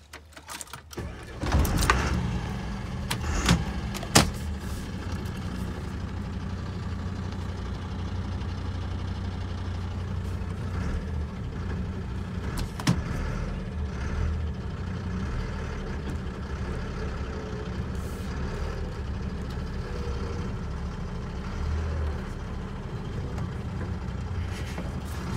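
MAN 26-tonne recovery truck's diesel engine starting about a second and a half in, then idling steadily, heard from inside the cab. A couple of sharp clicks come a few seconds in and another about halfway.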